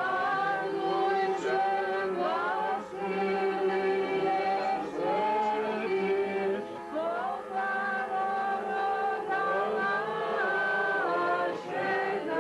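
Orthodox church chant: voices singing a slow melody with sliding ornaments and long held notes.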